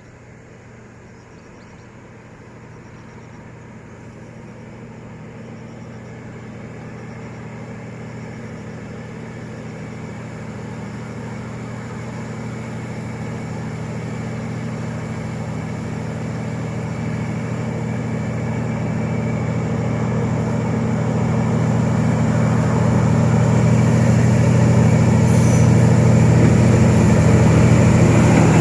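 D19E diesel-electric locomotive approaching, its engine's low, steady-pitched drone growing steadily louder throughout.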